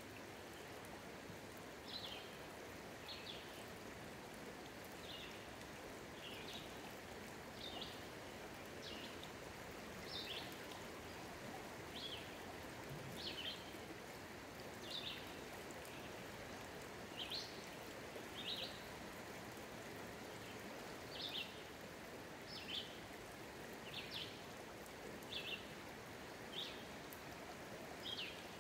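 Shallow river rushing steadily over a stony bed. Over it a bird calls a short, sharp, high chirp again and again, about once a second.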